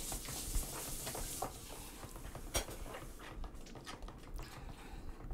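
Fork beating a wet flour-and-egg batter in a glass bowl: a quick patter of light clicks as the fork strikes the bowl, with one sharper clink about two and a half seconds in. The beating grows softer and sparser in the second half.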